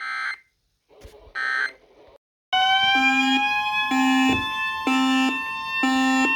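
Emergency Alert System audio. First come two short bursts of SAME digital data tones about a second apart: the end-of-message code that closes an alert. About two and a half seconds in, loud overlapping alert tones start, a steady attention tone layered with slowly rising tones and a pulsing pattern about once a second.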